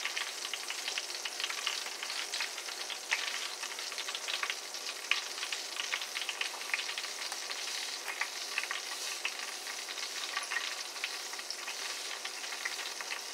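Flour-dredged sea scallops frying in shallow oil in a skillet: a steady sizzle with frequent small pops and crackles.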